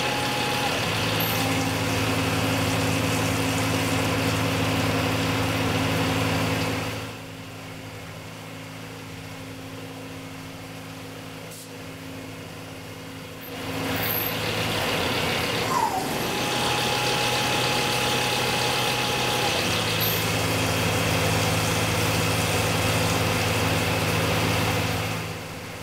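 Tormach 1100M CNC mill slotting 304 stainless steel with a 1/8-inch carbide end mill under flood coolant: a steady spindle and cutting hum with coolant spray hiss. It drops much quieter for several seconds in the middle, then comes back just as strong.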